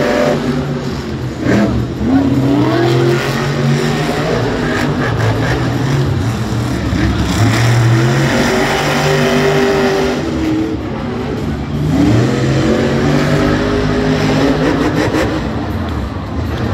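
Monster truck's supercharged V8 engine revving, its pitch climbing and falling again three times as the throttle is worked.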